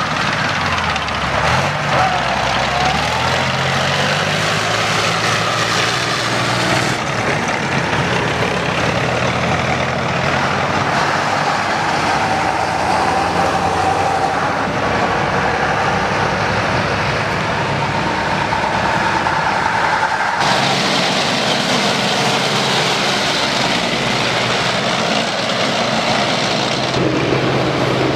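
Engines of a military convoy driving past: a tracked armoured vehicle, then army trucks, running steadily with their engine notes rising and falling as they go by. The sound changes abruptly twice.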